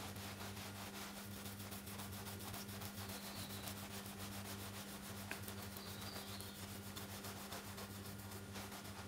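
A palm rolling a moist soil thread back and forth on a glass plate, the plastic-limit test of soil: a faint steady rubbing, over a low steady hum.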